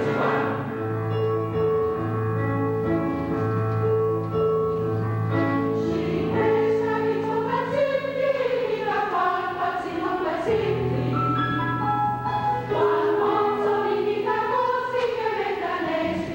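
Large mixed choir singing a classical choral passage. It opens on held chords, then moves into phrases that rise and fall.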